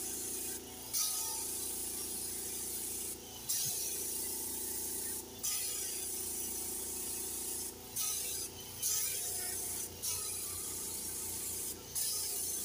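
Pneumatic paint spray gun hissing steadily as it lays a first coat of paint, stopping for a moment several times, over a steady low hum.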